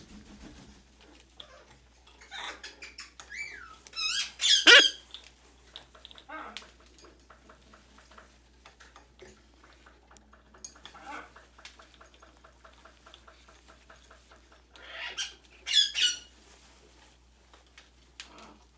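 Young red-fronted macaw squeaking and squealing while its itchy new pin feathers are scratched. The loudest squeals come about four seconds in, a second burst comes near the end, and a quieter run of rapid chattering pulses falls in between.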